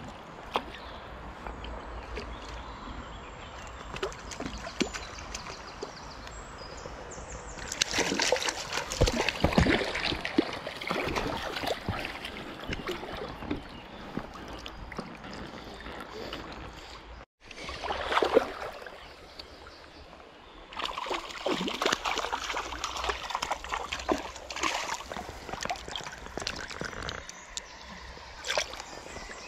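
Shallow stream water sloshing and splashing, with the flow of the stream underneath: wading and a hooked trout being brought in and handled at the surface. The sound drops out completely for a moment about seventeen seconds in.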